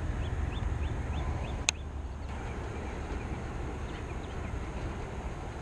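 Outdoor background with a low steady rumble, a small bird chirping in a quick run of short rising notes over the first two seconds, and one sharp click just under two seconds in.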